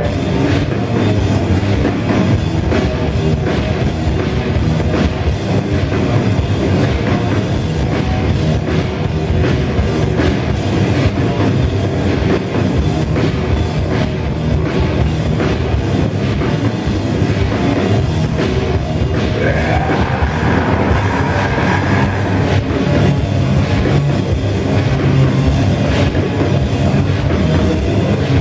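Heavy rock band playing live at full volume: distorted electric guitars, bass and a pounding drum kit, heard through the room from the audience. About twenty seconds in, a high note slides up and holds over the band.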